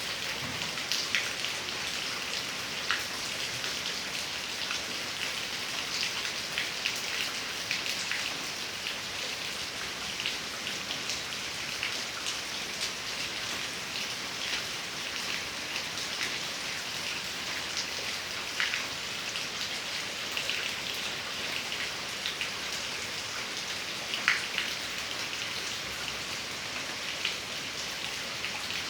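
Heavy, steady rain falling, with a continuous hiss and many separate drops pattering and splashing on nearby surfaces.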